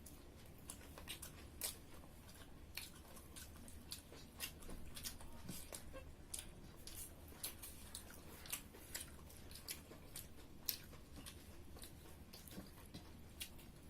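People chewing and eating pork curry with rice, faint, with many small irregular clicks and crunches from mouths and eating.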